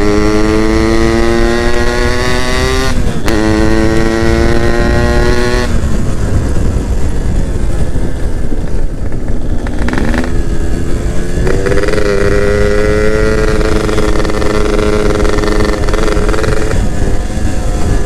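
Yamaha F1ZR's 110 cc two-stroke single-cylinder engine pulling hard under acceleration, its note climbing steadily with a short break about three seconds in, like a gear change. The throttle comes off near six seconds and the engine note falls away. About ten seconds in it picks up again and holds a steady rising note until near the end, over wind rushing past the microphone.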